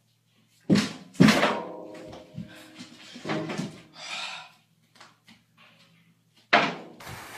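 Several loud thuds and bangs in a small room, like something heavy hitting a door or wall: two close together about a second in, each with a ringing tail, and another near the end.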